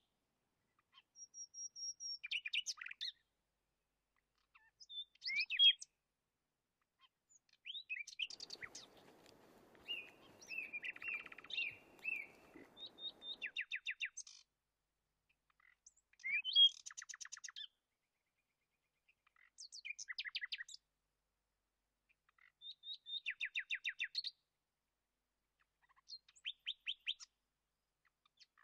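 Birds singing: short phrases of rapid, high chirps, each about a second long, repeating every few seconds with quiet gaps between. A faint low rustle runs under the song for a few seconds near the middle.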